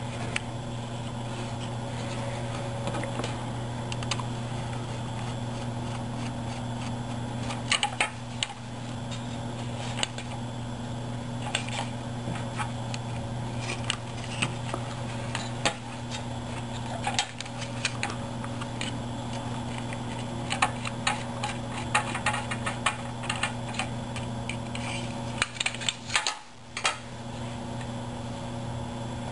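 Small scattered clicks and taps of nuts, bolts and laser-cut plywood parts being handled and fitted together by hand, coming more often in the second half. A steady low hum runs underneath.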